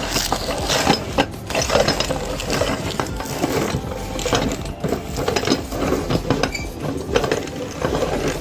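Meat grinder grinding crisp ice cream cones: a steady run of dense, irregular crunching and crackling with a mechanical, ratchet-like clicking.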